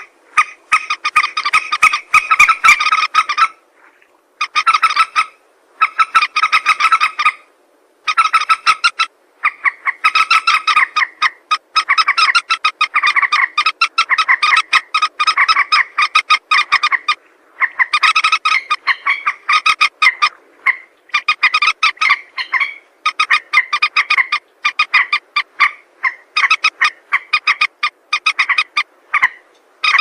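Common moorhen calls recorded for use as a hunting call: loud, rapid runs of short, rattling clucks in bouts a second to several seconds long, with brief pauses between bouts.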